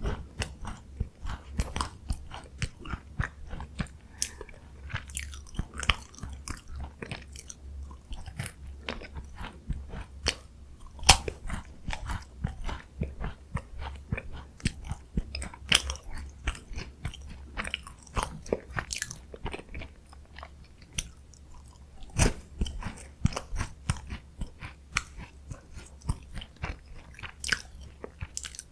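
Close-miked biting and chewing of crunchy Korean chocolate biscuit snacks: a dense run of crisp crunches and mouth clicks, with a few louder bites about 11 and 22 seconds in.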